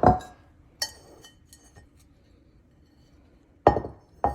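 Stone molcajetes being handled and set down: two heavy knocks at the start, a ringing clink about a second in, then two more knocks near the end.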